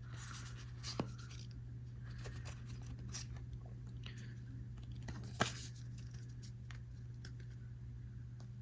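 Trading cards being handled and sorted by hand: faint slides and scrapes of card on card with a few light clicks, the sharpest about a second in and near the middle, over a steady low hum.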